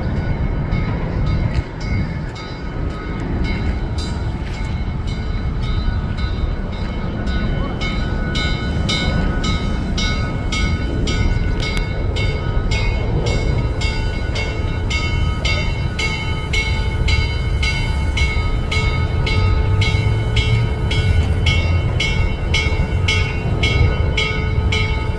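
Steam locomotive 1309 working with a steady rumble. From about a third of the way in, evenly spaced exhaust chuffs sound and slowly quicken, as when the engine gathers speed.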